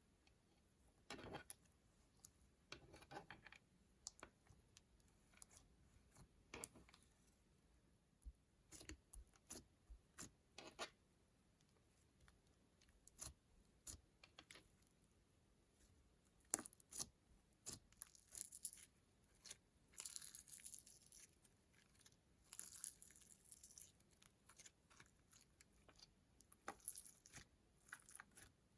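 Sticky slime being handled, squished and pulled apart by hand: quiet, scattered sticky clicks and pops, with longer crackling, tearing stretches about two-thirds of the way through.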